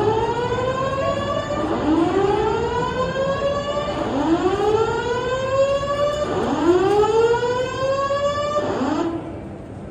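Building alarm system sounding a whoop tone: a rising sweep repeated about every two and a half seconds, stopping about nine seconds in.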